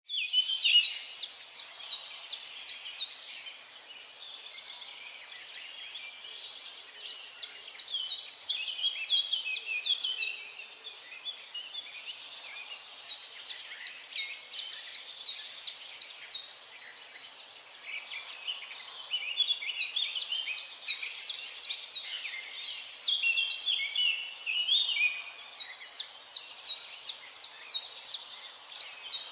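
Birds chirping: rapid series of high, downward-sweeping chirps, several a second, coming in bouts with short lulls between. A faint steady high tone runs beneath them.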